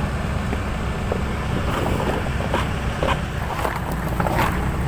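Machinery running with a steady low rumble, joined from about two seconds in by scattered short knocks and clacks.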